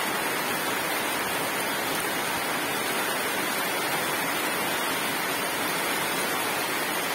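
Rain falling steadily on a corrugated metal roof overhead, an even, unbroken hiss.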